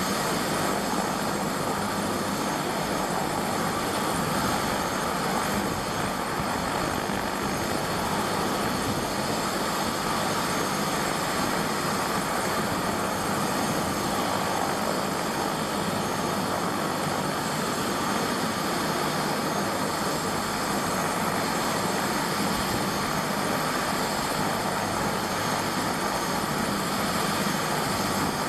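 Helicopter running steadily: a constant rush of engine and rotor noise with high, steady turbine whine tones over it.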